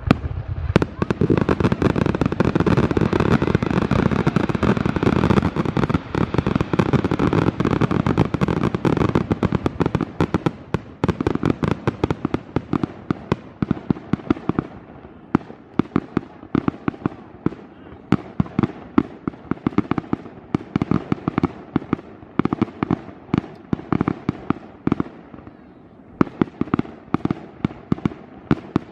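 Fireworks show going off: a dense, near-continuous barrage of bangs for about the first ten seconds, then many separate sharp bangs, some in quick clusters.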